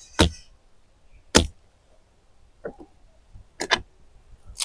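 Cassava (tapioca) roots being chopped into pieces with a knife: a series of sharp cutting strikes, roughly one a second.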